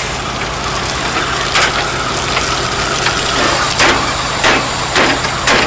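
Fire engine pump running with a steady hum under the hiss of water spraying from a hose. From about one and a half seconds in comes a series of knocks, closer together towards the end.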